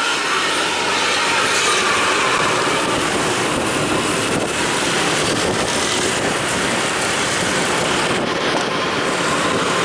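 Buses running at speed on a highway: a steady, loud rush of engine, exhaust and road noise.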